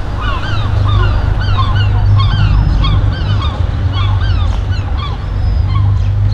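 A flock of birds calling: many short, arching calls, several a second and overlapping, over a steady low rumble.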